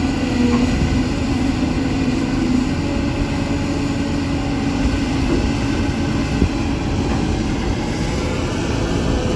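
CAT 320 excavator's diesel engine running steadily, its pitch holding constant with no revving.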